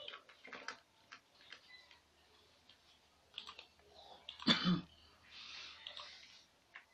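Scattered light clicks of a computer mouse, with one louder, short cough about halfway through.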